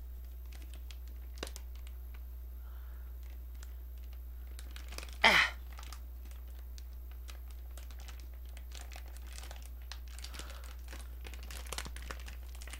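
A plastic snack wrapper being crinkled and torn open by hand: many fine crackles throughout, with one louder burst about five seconds in.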